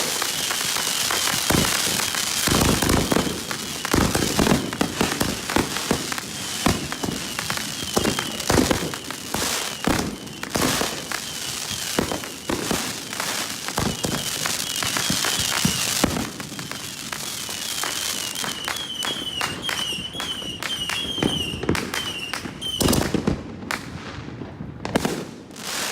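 Consumer fireworks finale: rapid-fire shots and bursts from mortars and cakes overlapping with dense crackling. A high warbling tone comes and goes, and the bangs thin out over the last few seconds.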